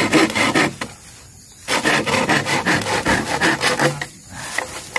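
A blade rasping against a bamboo stem in rapid back-and-forth strokes. It comes in two runs, with a pause of about a second after the first.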